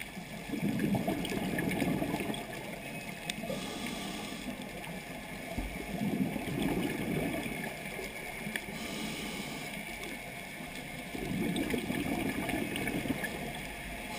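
Scuba diver breathing through a regulator underwater: each breath is a short hiss of inhaling, then a longer burble of exhaled bubbles, three breaths about five seconds apart.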